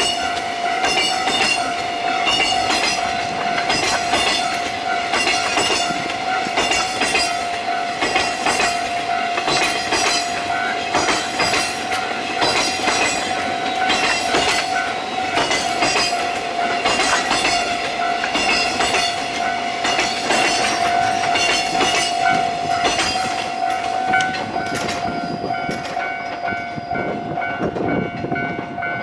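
Freight train wagons rolling past a level crossing, the wheels clacking over the rail joints, while the crossing's warning alarm rings with a steady tone. About 25 seconds in, the rolling noise thins out and the alarm tones go on.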